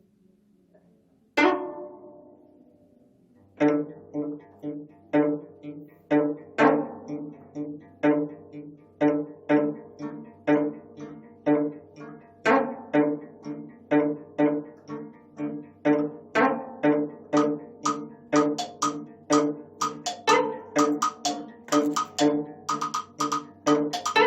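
25-string gayageum quartet playing: near silence, then one sharp note about a second and a half in that rings out. From about three and a half seconds a steady pattern of plucked notes follows, about two a second, growing busier toward the end.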